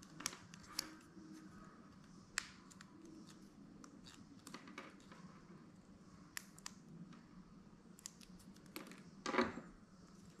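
Faint scattered clicks and small scrapes of fingers handling a Boya clip-on microphone, its plastic clip and cable, with a short rustle about nine seconds in.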